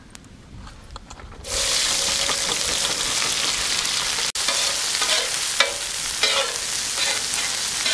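Sliced onions tipped into hot oil in a wide iron pan: a loud sizzle starts suddenly about one and a half seconds in and keeps going as the onions fry.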